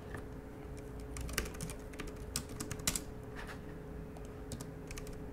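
Computer keyboard keys being typed in short irregular runs of clicks, over a faint steady hum.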